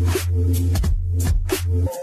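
Background music with a deep, sustained bass and a steady drum beat; the bass cuts out briefly near the end.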